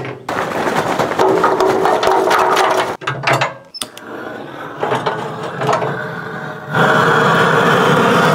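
Charcoal barbecue pit being fired up: a dense rattling and clattering, like charcoal and metal parts being handled, then a steady rushing noise from about seven seconds in.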